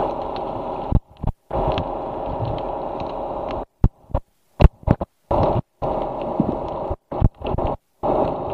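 Muffled sea-water noise picked up by a camera held underwater, a dense steady hum that cuts out abruptly several times, with sharp knocks and clicks as the camera is moved about.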